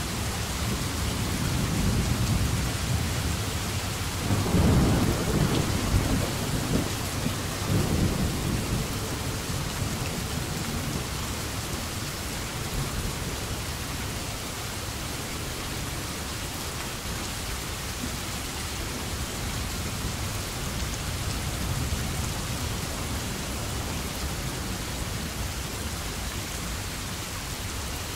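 Steady rain hissing, with a low rumble of thunder that builds over the first few seconds, peaks about a quarter of the way through and then dies away, leaving the even sound of the rain.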